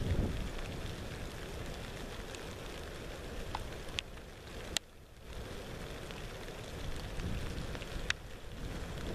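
Outdoor wind noise on the microphone: a steady rushing hiss with a low rumble, a few sharp ticks, and a brief drop in level about five seconds in.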